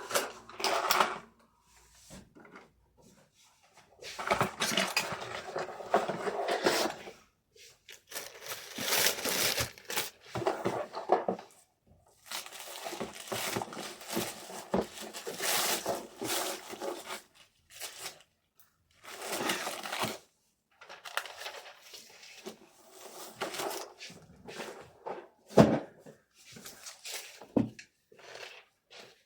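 Packaging being handled during order packing: irregular stretches of rustling and crinkling with short pauses, and two sharp knocks near the end.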